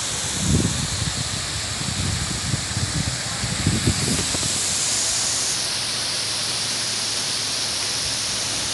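Heavy rain falling in a steady hiss, with low rumbles on the microphone about half a second in and again near four seconds.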